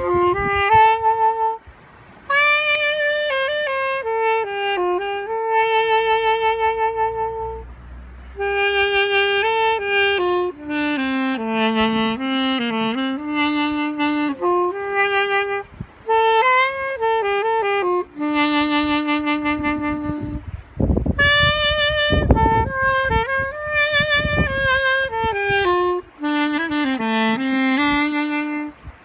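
Solo saxophone playing a slow, lyrical ballad melody in sustained, phrased notes with short breaths between phrases. A few brief low rumbling noises cut in about two-thirds of the way through.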